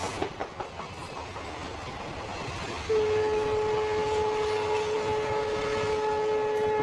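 A passenger train of blue coaches passing close by, with a steady rushing and a few wheel clicks over the rail joints at first. About three seconds in, a train horn starts one long steady note that lasts to the end.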